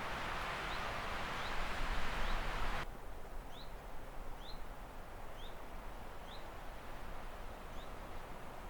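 A bird repeating a short, high, rising chirp about once a second, over a steady rushing hiss that cuts off suddenly about three seconds in.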